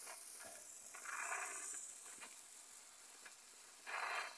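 Small gold/silver rain fountain firework hissing as it sprays a jet of sparks, with two louder surges of hiss, about a second in and again near the end.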